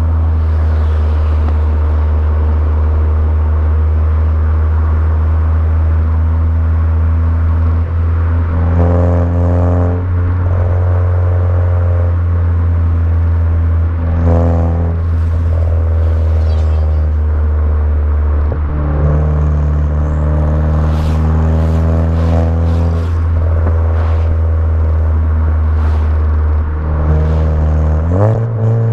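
Turbocharged 2.0-litre four-cylinder of a VW Jetta GLI Mk6 with aftermarket downpipe and cat-back exhaust, running at steady revs with a deep, even drone. The pitch steps up suddenly near the end.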